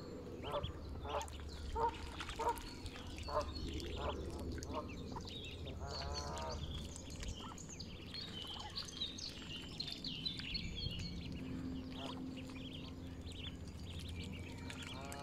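Mallard ducklings peeping in small high chirps, thickest in the middle, with a run of short, evenly repeated lower calls from adult waterfowl in the first few seconds and a longer drawn call about six seconds in.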